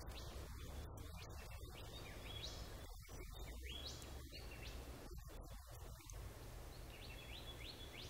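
Fan-tailed cuckoo calling: repeated high, falling trills, each a short run of notes stepping down in pitch, over a low steady rumble.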